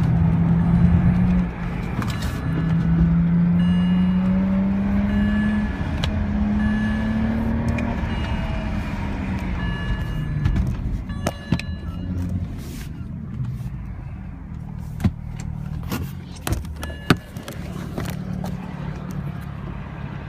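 BMW 335i's turbocharged straight-six pulling hard, heard from inside the cabin. Its note rises through a gear with a short break at a gear change about a second and a half in, then eases off and settles to a lower steady running note, with scattered clicks and knocks in the second half. The occupants reckon the car is broken and down on power, with a dead exhaust.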